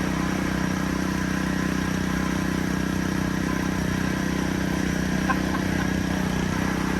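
Sod cutter's small gasoline engine running steadily as the machine cuts sod, with a brief click about five seconds in.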